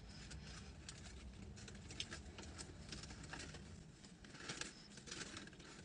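Faint close-up chewing of a sandwich: soft, scattered mouth clicks and smacks.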